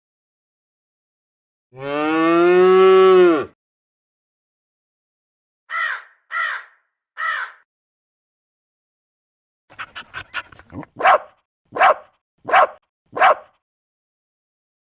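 A cow mooing once in one long call that drops in pitch at the end, followed by three short crow-like caws. Near the end comes a quick run of faint clicks and then four loud, short, sharp calls about two-thirds of a second apart.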